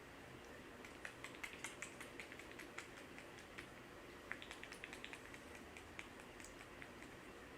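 Faint, irregular small clicks and crackles, a few a second, from a barber's fingers working through the hair and over the scalp during a head massage.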